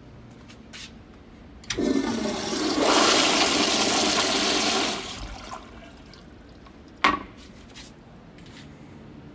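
Toilet with a commercial flushometer valve flushing: a sudden loud rush of water lasting about three seconds, then tapering off. One sharp knock comes about two seconds after the flush.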